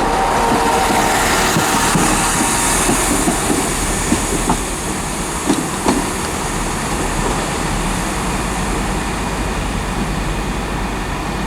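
A train running along the platform, with a steady rumble and a few sharp clicks of its wheels over rail joints about four to six seconds in.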